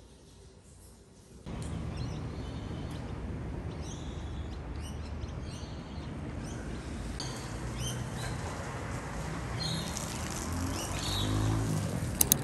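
Outdoor ambience of birds chirping again and again over a steady low rumble. It starts suddenly about a second and a half in, after near silence, and a couple of sharp clicks come right at the end.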